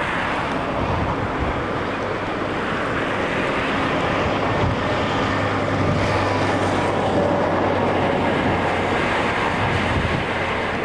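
Wind rushing over the camcorder's microphone, with the wash of the sea below. A faint, low, steady hum joins about halfway through.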